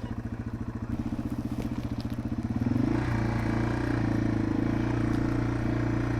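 Yamaha TW200's single-cylinder four-stroke engine ticking over with slow, even thumps, then picking up revs about two and a half seconds in and running steadily at a higher speed as the bike moves off.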